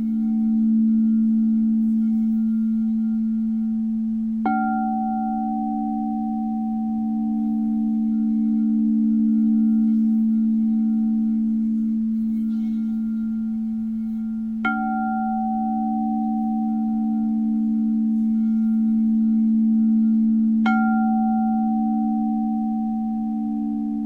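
Singing bowl humming with a steady low tone that slowly swells and ebbs. It is struck three times, about four and a half, fifteen and twenty-one seconds in, and each strike sets higher overtones ringing that fade over a few seconds.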